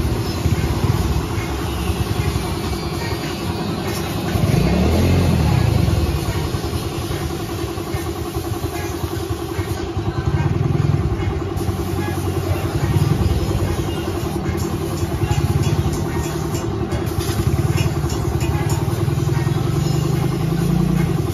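An air compressor runs steadily under the hiss of a paint spray gun being used to spray-paint. A low rumble swells and eases several times.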